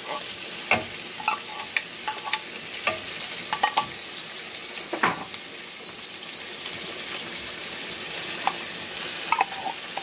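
Corned beef, garlic and onion frying in oil in a pan, a steady sizzle. Scattered sharp clicks and scrapes of a metal spoon against the can and pan run through it.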